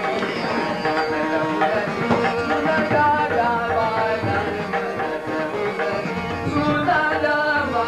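Hindustani classical music: tabla played with harmonium accompaniment, under a male voice singing a melodic line that bends in pitch.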